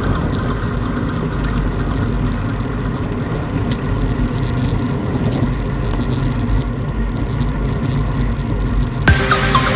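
Strong wind buffeting the microphone as a steady low rumble, with faint music underneath. About nine seconds in, louder electronic music cuts in abruptly.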